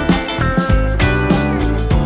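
Background music with guitar over a steady beat and a strong bass line.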